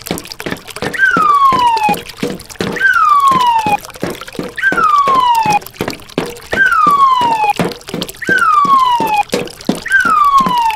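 A whistled call that slides down in pitch over about a second, repeated six times at an even pace of about one every two seconds. Underneath it, water trickles over the stones of a shallow stream, with many small clicks and splashes.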